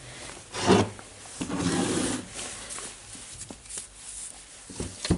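Metal and plastic impact-wrench parts being picked up and handled on a wooden bench: a loud scrape or knock just under a second in, rubbing and sliding around two seconds in, and a few small clicks and knocks near the end.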